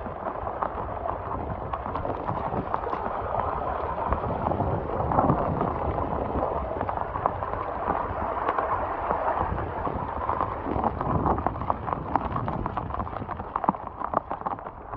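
Muddy storm runoff rushing and splashing over rock check dams and gushing out of a culvert pipe, a steady rushing noise with a low rumble.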